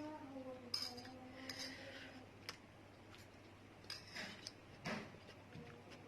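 Faint sounds of someone eating spicy instant noodles: a short, low 'mm' from the eater in the first two seconds, then scattered light clicks of utensil on dish and short breathy sounds, a few of them about four and five seconds in.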